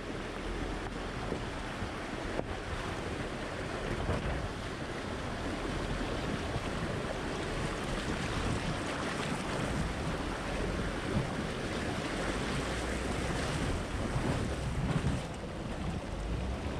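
Creek water rushing and splashing around a Jeep's front tyre and body as it fords a fast, rocky stream, with wind buffeting the microphone and a low rumble underneath.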